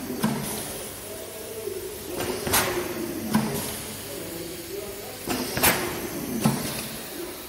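Pneumatic cylinders of a volumetric dosing and lid-pressing machine actuating, with two pairs of sharp compressed-air exhaust hisses about three seconds apart over a wavering hum.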